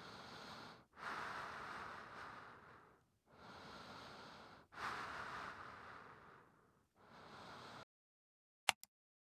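A sleeping dog's slow, deep breathing: quieter steady breaths alternate with louder breaths that fade away, about one breath every three seconds, stopping suddenly near the end. Two sharp clicks follow.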